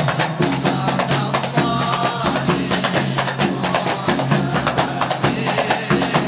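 Several rebana frame drums struck by hand in a fast, dense interlocking rhythm, an instrumental passage of a sholawat, with a short sung phrase faintly heard about two seconds in.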